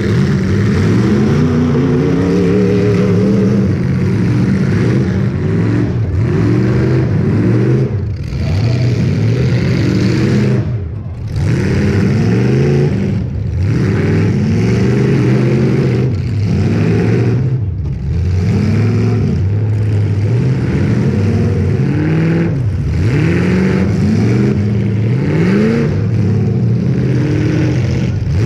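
Several demolition derby car engines revving hard, over and over, their pitches rising and falling against one another.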